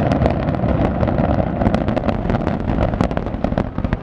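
Dense barrage of aerial fireworks shells bursting: a continuous rumble of booms with many sharp cracks, easing slightly near the end.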